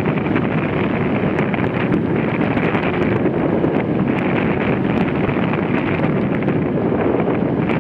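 Steady rush of wind buffeting the microphone of an action camera on a jet ski running at speed, blended with the rush of water and spray.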